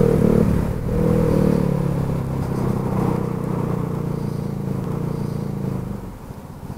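A 2006 Baotian BT50QT-9D scooter's 139QMB four-stroke engine running under way. Its pitch falls and it falters briefly about a second in, then runs on lower and dies away about six seconds in: the engine is failing on the move.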